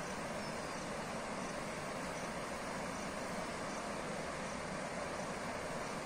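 Steady roar of a waterfall and the white-water cascade below it, heard from across a gorge as an even rushing.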